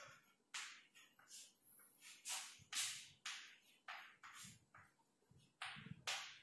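Chalk writing on a chalkboard: about a dozen short, faint scratchy strokes, coming irregularly at roughly two a second as letters are formed.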